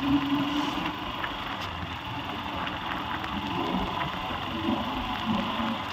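Motorbike riding along a wet road: the engine running under steady wind and road noise.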